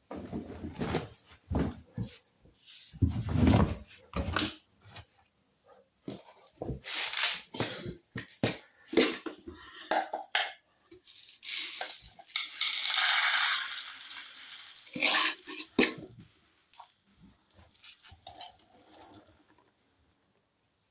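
Irregular knocks and clatter of hard items being handled, with a brief rushing hiss about two-thirds of the way through.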